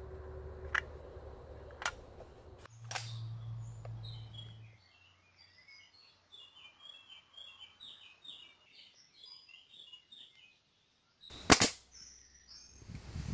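A few sharp clicks as the pneumatic nail gun is handled and loaded, then birds chirping. Near the end comes a single sharp, very loud bang as the air-powered nailer fires an RFID smart nail into a tree trunk.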